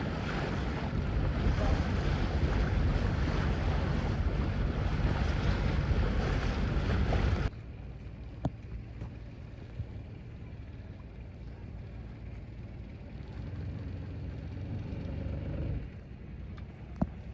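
Wind and sea noise aboard a sailing yacht, with wind buffeting the microphone. It is loud for the first seven seconds or so, then changes suddenly to a quieter, steady low rumble.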